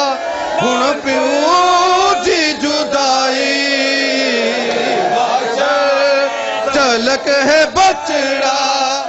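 A man chanting a Punjabi noha (mourning lament), holding long, wavering notes that glide up and down. A few sharp slaps sound about seven to eight seconds in.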